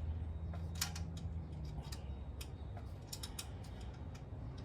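Irregular sharp metallic clicks and clinks of hand tools being handled, over a low hum that fades out about two seconds in.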